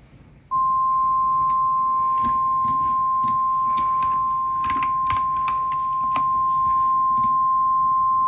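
NOAA Weather Radio warning alarm tone: one long, steady single-pitch tone that starts about half a second in and holds without a break, over faint radio static crackle. It signals that a warning broadcast is about to follow.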